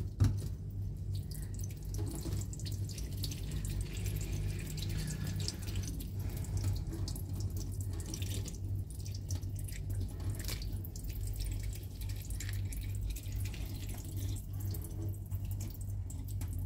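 Kitchen tap running steadily, a thin stream of water splashing onto a hand and into a stainless steel sink. A brief burst of splashing just after the start as the wet parrot flaps its wings under the stream.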